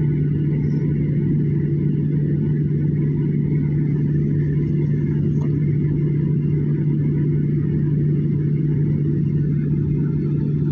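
Airliner jet engine heard from inside the passenger cabin while taxiing: a steady low drone and rumble with a constant hum underneath.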